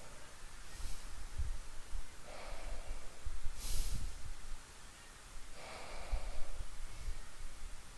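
A person breathing audibly close to the microphone: about four separate nasal breaths or sniffs. The sharpest and loudest comes about four seconds in.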